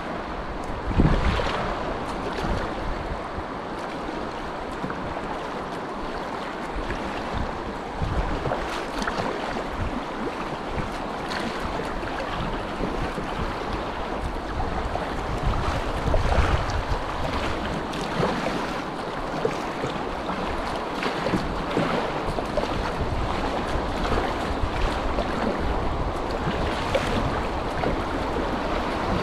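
Rushing whitewater of a class II river rapid, a steady hiss around the kayak, with occasional gusts of wind buffeting the microphone, the strongest about a second in and again near the middle.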